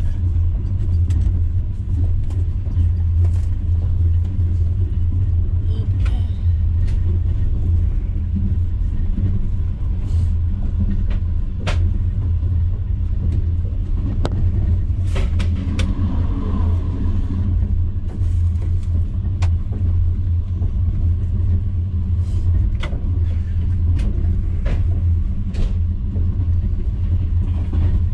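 Steady low rumble of a moving passenger train heard from inside the carriage, with scattered short clicks and knocks.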